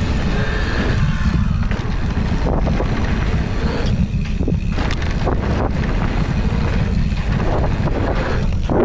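Wind rushing over the action camera's microphone as a mountain bike rides a dirt trail, with a steady low rumble. Tyres roll on the dirt, and the bike gives off frequent short knocks and rattles over bumps.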